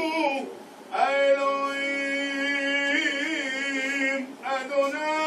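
A hazzan (cantor) chanting Selichot penitential prayers: a single male voice holding long, drawn-out notes with small ornaments. He breaks off for breath about half a second in and again near the end.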